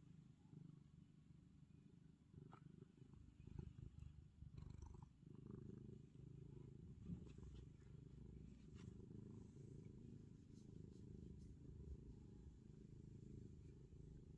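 Black domestic cat purring faintly and steadily while being petted, a continuous low rumble, with a few faint scratchy rustles over it.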